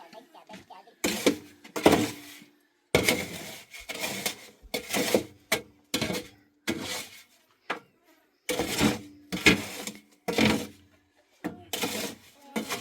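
A run of about a dozen sharp scraping knocks from hand tools, each starting suddenly and stopping within a second, a few with a brief ringing tone.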